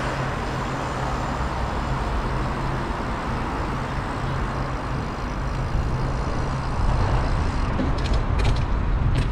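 Road traffic noise with a motor vehicle's engine running steadily, and a few sharp clicks near the end.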